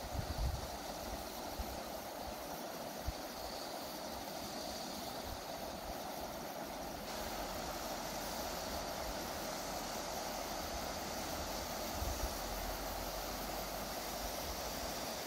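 Steady rushing outdoor ambience, with low gusts of wind buffeting the microphone near the start and again near the end.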